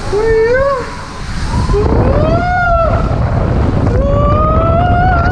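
Rushing water and wind noise on a tube water-slide ride, with a rider shouting in long drawn-out calls: a short one at the start, a longer rising one, then one held from near the end.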